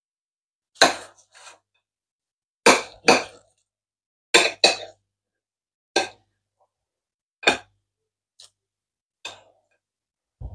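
A kitchen knife cutting raw thick pork ribs into pieces on a ceramic plate: about ten sharp knocks and clinks as the blade strikes through to the plate, irregularly spaced and some in quick pairs.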